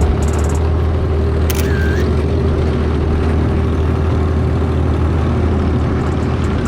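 Off-road buggy engine running steadily with a deep hum, and a brief high-pitched sound about one and a half seconds in.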